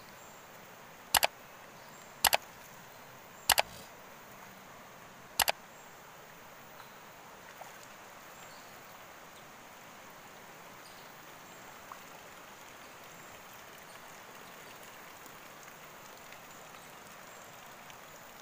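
Four sharp double clicks in the first six seconds, then the steady rush of a shallow river flowing over stones.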